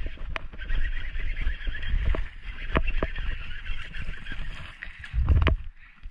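Spinning reel being cranked as a hooked largemouth bass is reeled in, a steady whirring hiss with scattered clicks of rod and reel handling over wind rumble on the microphone. A short heavy splash-like thump a little after five seconds, as the fish is pulled from the water, is the loudest moment, and the whirring stops just after it.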